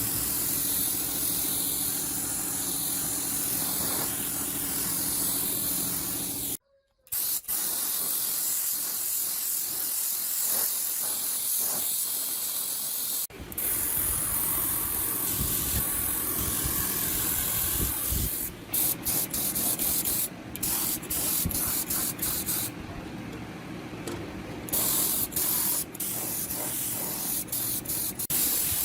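Steady spraying hiss, like compressed air or a spray gun, stopping and restarting in short segments with a brief silence about a third of the way in.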